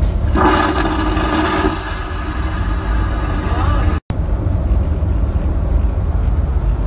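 Boeing 737 vacuum toilet flushing: a loud rushing suction with a hum begins just after the start and fades out over about three seconds as it pulls toilet paper down the bowl, over a steady low aircraft cabin drone. The sound cuts out for a moment about four seconds in, after which only the low drone continues.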